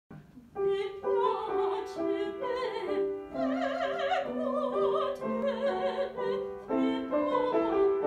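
A woman singing classical, operatic style with a wide vibrato, over piano accompaniment, beginning about half a second in.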